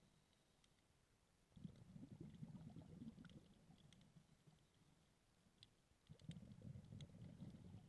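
Faint underwater sound of scuba regulator exhaust bubbles, two low bubbling rushes of about two seconds each, starting about one and a half seconds in and again about six seconds in. Scattered faint sharp clicks come through between them.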